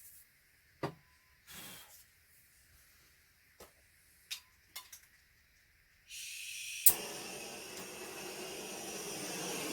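Handheld gas blowtorch: gas starts hissing about six seconds in, the igniter gives one sharp click, and the lit flame burns with a steady rushing sound that grows slightly louder toward the end. A few light taps and knocks of handling come before it.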